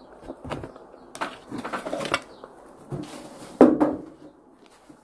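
Knocks, scrapes and light clatter of a plate and fork being picked up off a wooden table as someone gets up from a wooden chair, with the loudest knock about three and a half seconds in.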